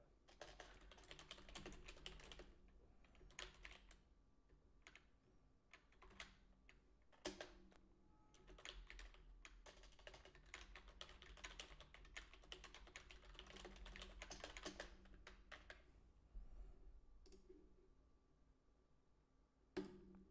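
Faint typing on a computer keyboard: quick runs of key clicks broken by short pauses, with a louder single key strike about seven seconds in.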